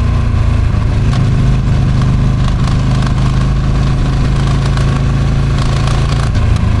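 Ducati Streetfighter V2's 955 cc V-twin through its stock exhaust, running at steady revs with a held note that dips briefly near the end, mixed with wind noise rushing over the microphone.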